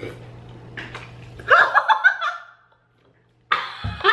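Two women laughing and shrieking. The laughter breaks off into about a second of dead silence and comes back loud near the end.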